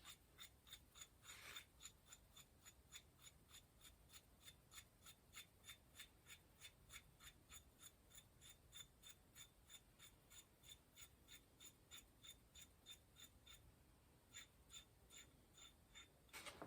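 Faint, even metallic clicking, about four clicks a second, as a cone nut is turned down the lubricated threads of a bicycle's rear axle; the clicking pauses briefly near the end, then resumes.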